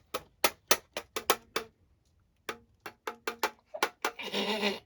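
A quick series of sharp plastic clicks or taps, about fourteen in two runs with a short pause between, each with a brief ringing tone; near the end a louder half-second sound with a pitched buzz cuts in.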